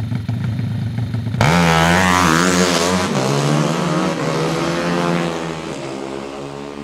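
Four-stroke, under-110 cc drag motorcycle held at high revs on the start line, then launching about a second and a half in. Its engine note climbs and drops as it shifts up, growing fainter as it runs away down the strip.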